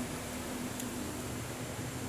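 Steady background hiss with a low hum, and a faint tick about a second in.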